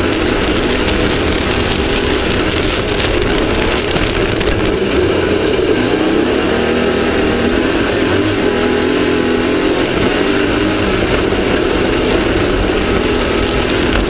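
Off-road race vehicle's engine running hard at speed, its note rising and falling a little, heard from a camera mounted on the vehicle over a steady rush of wind and terrain noise.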